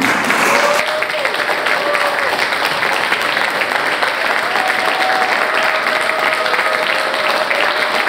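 Audience applauding, breaking out all at once and going on steadily.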